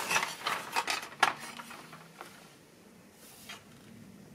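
A few sharp plastic clicks and knocks in the first second or so as a Power Team Elite 1:18 scale plastic toy Humvee is handled and its small plastic door clicked open.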